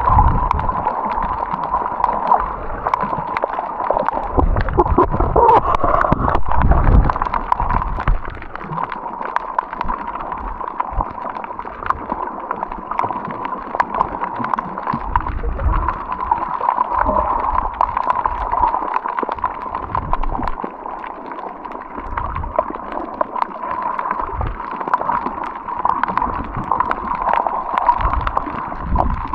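Water gurgling and sloshing against the microphone, with irregular low bumps that are heavier in the first several seconds.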